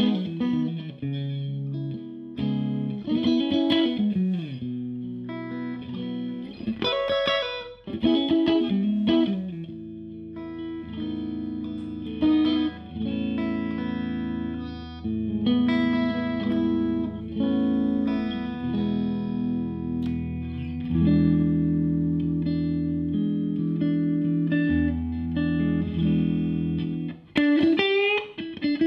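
Odlair SH 210 Stratocaster-style electric guitar played through a Marshall JTM combo amplifier. A lead line with string bends runs for the first several seconds, then comes a long stretch of sustained chords and melody notes, and more bends near the end.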